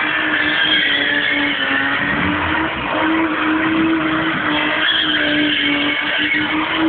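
Car engine held at high revs while the car drifts in circles, rear tyres spinning and squealing on asphalt. The engine note stays fairly steady, rising and dipping only slightly.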